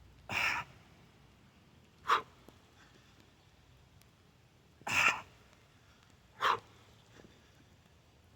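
A person's forceful breaths between or during heavy kettlebell lifts: four sharp blows of air, longer and shorter ones alternating.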